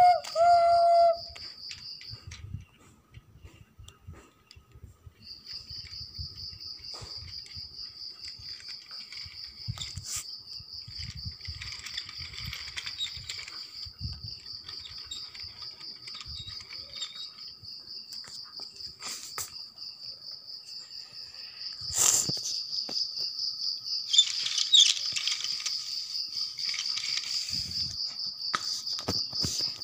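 A cricket trilling steadily at a high pitch, breaking off for about three seconds near the start and then resuming. Underneath come faint clicks and rattles from a battery toy train running on its plastic track, with one sharp knock about 22 seconds in.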